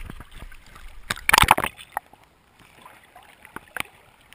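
Sea water splashing and sloshing against a GoPro camera held at the surface while swimming, with a loud splash about a second in. After about two seconds the camera is underwater and the sound drops much quieter, with a few sharp clicks.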